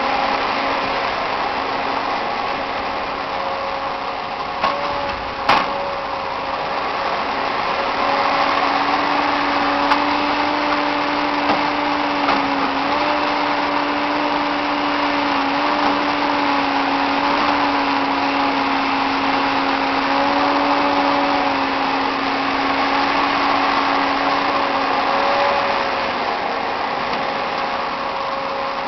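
John Deere 3554 shovel logger's diesel engine and hydraulics running steadily under load while the boom and grapple work, a hum whose pitch wavers slightly and rises a little in level about eight seconds in. A sharp knock sounds about five seconds in.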